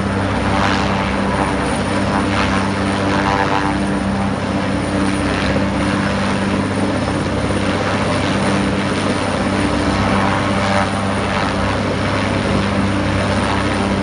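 Helicopter running, a steady, loud rotor and engine drone with a few low steady tones under a rushing noise.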